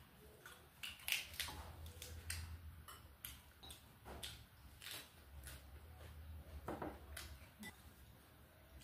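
Eating sounds: scattered light clicks and taps of chopsticks against ceramic bowls, with chewing, over a faint low hum.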